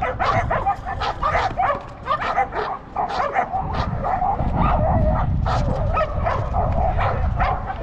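Dog barking over and over in quick succession, a few barks a second, while it faces a decoy during bite-work training.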